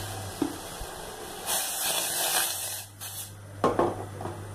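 Milk tea boiling in a stainless steel saucepan over a gas burner: a steady hiss that swells louder for about a second and a half in the middle, with a couple of brief knocks.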